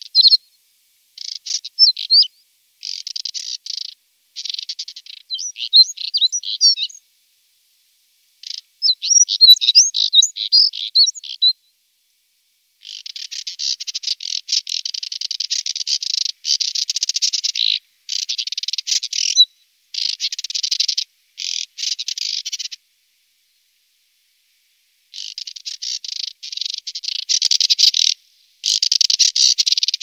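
Moussier's redstart singing: high, thin twittering phrases with quick up-and-down chirps, then longer dense, scratchy strophes. The song comes in separate bursts that start and stop abruptly, with silent gaps between them.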